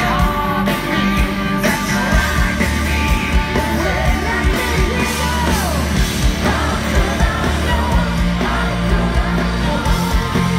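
A live rock band playing a song, with a male lead singer over drums, bass, guitars and keyboards, recorded loud from within the audience.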